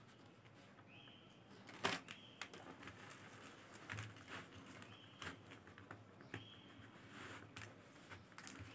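Faint, scattered clicks of faceted beads knocking together as the beadwork is stitched and handled on clear thread, with a few short high squeaks. The sharpest click comes about two seconds in.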